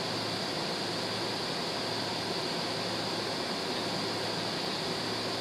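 Steady cabin noise inside a jet airliner on the ground with engines at idle: an even hiss of the ventilation air with a low steady hum underneath.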